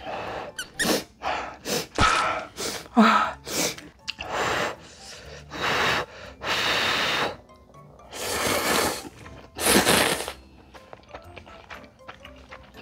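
Instant ramen noodles being slurped: a quick run of short slurps, then several longer drawn-in slurps, the last about ten seconds in.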